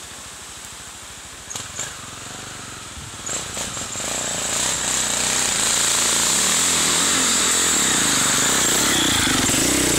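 Enduro dirt-bike engine revving as the bike approaches and passes close by, growing loud from about three seconds in and loudest near the end, its pitch rising and falling with the throttle.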